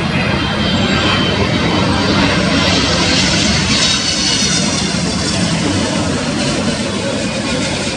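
Korean Air Boeing 777 on final approach with gear down, passing low overhead: steady jet engine noise with a high whine that swells around the middle and eases toward the end.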